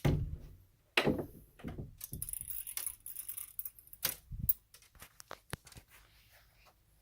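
Two sharp knocks about a second apart, then a few seconds of small metallic clicks and jingling as a small smart lock is handled.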